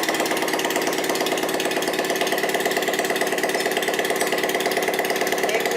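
Bajaj Platina motorcycle's single-cylinder four-stroke engine idling steadily with the silencer removed, the open exhaust firing in a fast, even run of pulses.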